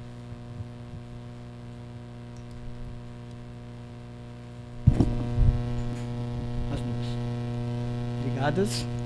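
Steady electrical mains hum from the amplifier and mixer setup. About five seconds in there is a sharp thump and a few knocks, after which the hum is louder.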